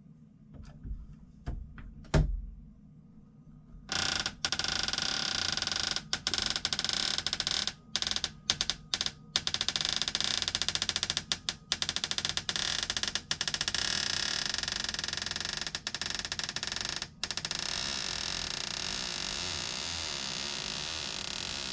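Interior door creaking as it is moved, a loud grating chatter of rapid ticks that starts about four seconds in and runs on with brief breaks. A few light knocks come before it.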